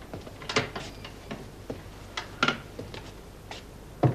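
About a dozen light, irregular clicks and knocks, with a heavier, deeper knock near the end.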